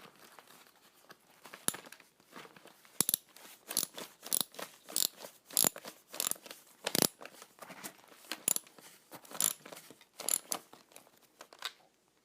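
Hands working the backpack's frame parts, adjusting the bracket angle and spine pole: an irregular string of sharp clicks and crunches, about one or two a second.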